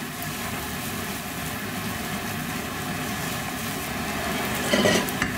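Kitchen extractor hood fan running steadily on a raised setting, with a brief clatter near the end.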